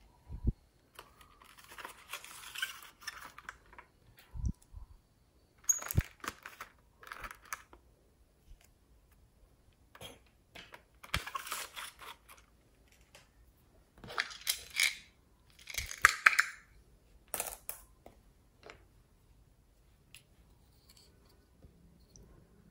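Hands handling small plastic cases and items: bursts of rustling and clicking with a few sharp knocks, coming in separate bunches a second or two long with quiet gaps between.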